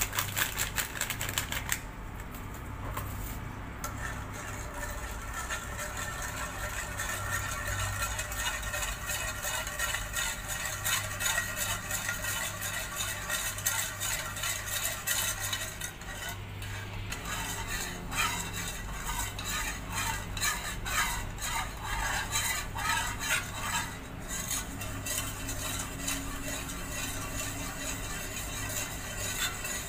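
A spoon stirring jelly mix in a steel pot, with rapid, repeated clinks and scrapes against the pot, over a steady low hum.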